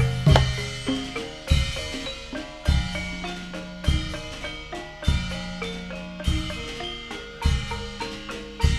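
Instrumental Javanese gamelan music: metallophones ring in interlocking steady notes over a drum beat, with a heavy low drum stroke about every 1.2 seconds.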